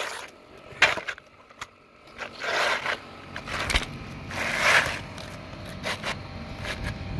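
Bostitch pneumatic coil roofing nailer firing a few quick shots into asphalt shingles in the first second or two. After that, twice, an asphalt shingle scrapes as it is slid across the gritty roof surface, and a few light knocks follow near the end.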